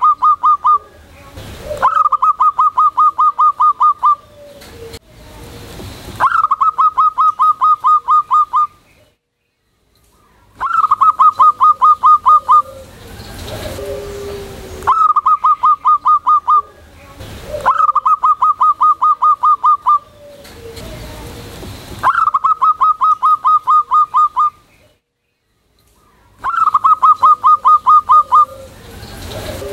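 Zebra dove (perkutut) singing its cooing song over and over, loudly. Each phrase is a short low note followed by a fast run of about ten clipped higher coos, lasting about two seconds, and the phrase repeats every four seconds or so.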